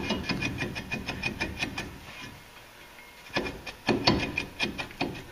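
Front brake rotor of a Ford F-250 Super Duty being rocked and pulled on its rust-bound hub: a quick run of small metallic clicks and ticks, then a few heavier clunks about three and four seconds in.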